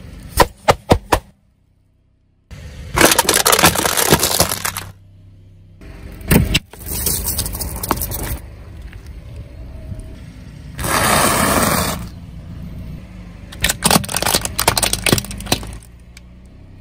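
A car tyre rolling over and crushing objects on asphalt, one item after another with short cuts between. Near the start there are several sharp pops as balloons burst under the wheel. After that come separate bursts of crunching and cracking as things break beneath the tyre.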